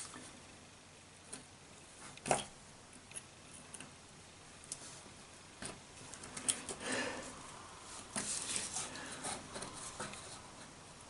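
Small sharp clicks and bursts of scratching as a blade picks and scrapes at a SIM card's chip module, prying it apart; the scratching comes in two stretches past the middle.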